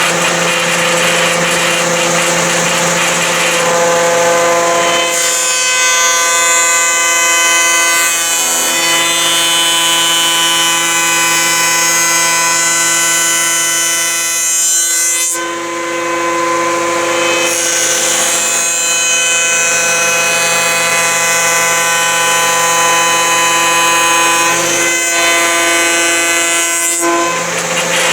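Woodworking power tool with a spinning cutter running steadily while shaping 2x4 stock into beehive frame side bars. Its tone changes twice, about five seconds in and again past the middle, each change lasting roughly ten seconds, as a piece is run through the cutter.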